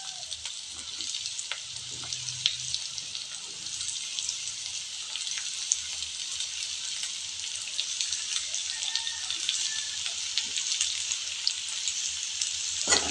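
Chopped onions, curry leaves and mustard seeds frying in hot oil in a nonstick kadai: a steady sizzle with scattered small crackles, while cubed raw bottle gourd is tipped into the pan.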